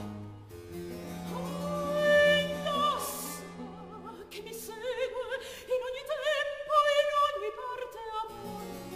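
Baroque soprano voice singing with a wide vibrato in two long phrases, over sustained low bass notes of a continuo accompaniment.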